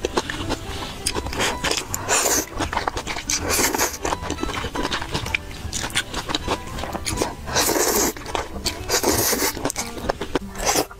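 Close-up eating sounds of thick saucy stir-fried noodles: wet chewing and lip smacks with many small clicks, and several louder slurps as the noodles are sucked in.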